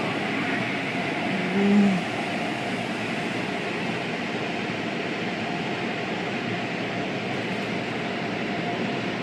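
Automatic tunnel car wash running, heard from inside the car: water jets and spinning cloth brushes washing over the body as a steady rushing noise. A brief low hum comes about two seconds in.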